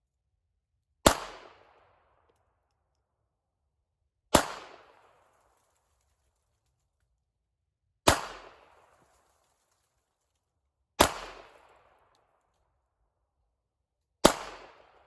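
Five single pistol shots fired slowly, about three seconds apart, each with a short echo that dies away.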